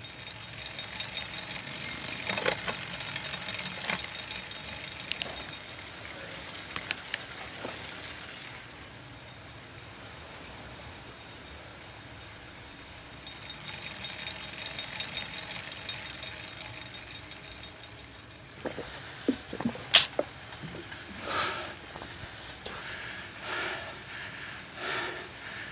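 Steady whir of an indoor bike trainer under hard pedalling, with a few sharp clicks, the loudest about 20 seconds in. Near the end, heavy rhythmic breathing from the rider.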